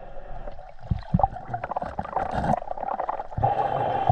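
Underwater river sound, heard from below the surface: a steady muffled rush of water, with scattered clicks and low knocks as a gloved hand digs through the silt and stones of the riverbed.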